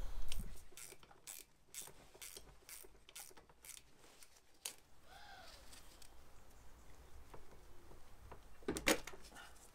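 Faint, irregular clicking of hand tools and metal fittings as a carburetor is unfastened and worked off a small motorcycle engine, about three clicks a second at first. A brief faint squeak comes about five seconds in, and a louder clatter near the end.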